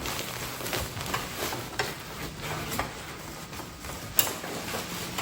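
Cloth rustling with scattered light clicks and taps as a large costume dress is handled and fitted over an animatronic's frame; one sharper click about four seconds in.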